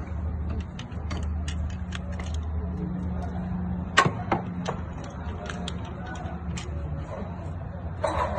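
Car engine idling steadily, with irregular light clicks and taps over it and one sharper knock about four seconds in.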